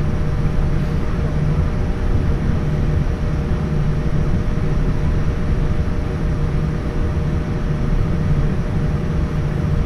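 Cabin noise inside a Boeing 787-10 as it taxis: a steady low hum from the engines and cabin air, with a faint steady whine over it.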